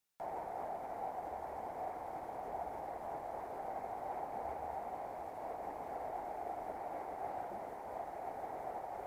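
Fast-flowing river water rushing steadily over a shallow, stony run.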